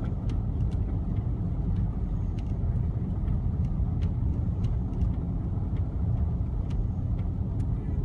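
Steady low rumble of a car driving, heard from inside the cabin, with faint scattered ticks.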